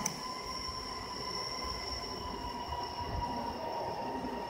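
FORSUN FS1630ATC automatic-tool-change CNC router running: a steady high-pitched whine made of several held tones over a low rumble, with a sharp click right at the start.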